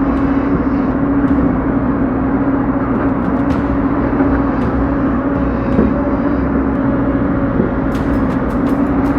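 Excavator's diesel engine running steadily with an even hum, with a few sharp clicks and knocks near the start and again near the end.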